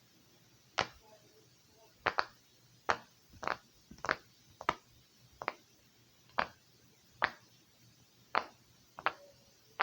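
A fidget toy being played with by hand, giving sharp clicks or snaps at an uneven pace, about one or two a second, some in quick pairs.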